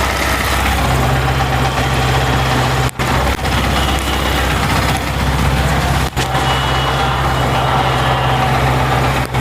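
Yamaha MT-15's single-cylinder four-stroke engine running steadily at a held speed, in stock BS6 tune, whose sound owners find not very good. The sound briefly dips about three and six seconds in.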